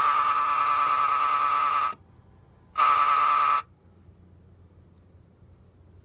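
Unexplained buzzing tone from a Citroen C5 X7 2.2 HDi: a loud, steady, high buzz that cuts off about two seconds in, then returns as a shorter burst near the middle. The owner has ruled out the hydractive suspension pump as its source.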